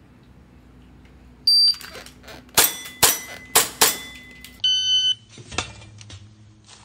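An electronic shot timer gives a short high start beep, and about a second later four quick shots ring out from a gas-powered airsoft pistol. A lower electronic beep follows from the timer and target system.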